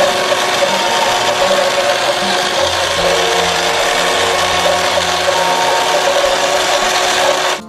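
Plastic toy vehicle being scrubbed clean: a loud, dense, continuous scratchy rubbing noise that cuts off abruptly near the end.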